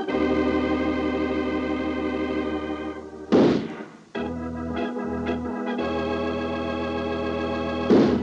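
Organ music playing held chords, broken twice, about four and a half seconds apart, by a sudden loud crash, each followed by a brief drop before the chords resume.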